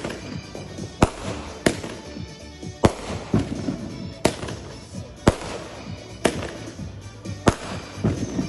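Fireworks going off in a string of sharp bangs, about one a second.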